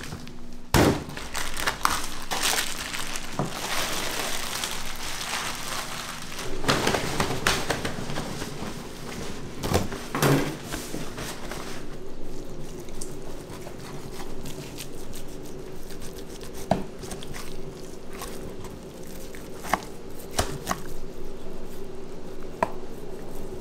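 Hand food preparation in a restaurant kitchen: crinkling and rustling with scattered clicks and knocks. A steady hum sets in about a third of the way through.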